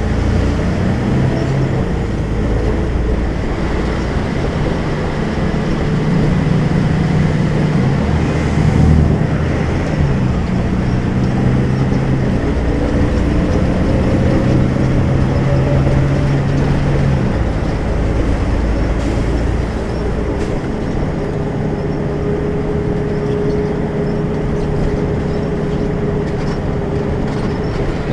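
Volvo B12M bus's 340 hp diesel engine running under way, its note rising and falling with speed and load through the ZF gearbox. A steady higher whine sits over the engine in the second half.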